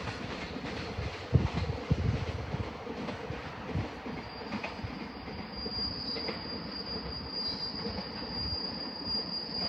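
Container freight train passing, its wagons rolling by with sharp knocks from the wheels over rail joints. A high steady wheel squeal sets in about four seconds in and holds on.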